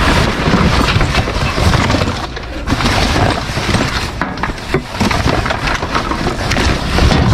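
Trash in a dumpster being rummaged and shifted by hand: loose rustling with many small knocks and clatters.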